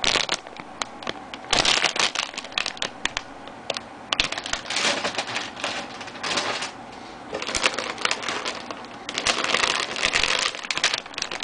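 Plastic bags crinkling and rustling, with sharp clicks and clatter, as the plastic model kit's part trees are handled. The noise comes in several loud, irregular spells.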